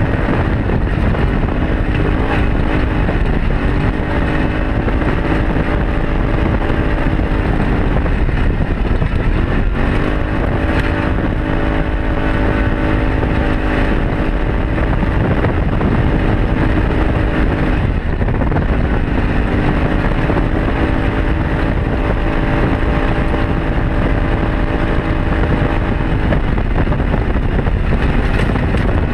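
Arctic Cat Wildcat side-by-side's engine running under way, with tyre and chassis noise from the gravel trail underneath. The engine note holds steady for several seconds at a time and dips briefly every eight or nine seconds as the throttle eases off and picks up again.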